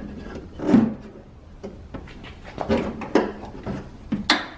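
Irregular clicks, knocks and scraping of a door lock actuator and its cable being worked through into a car door's inner cavity, plastic and metal bumping against the door shell. The loudest knocks come about a second in and near the end.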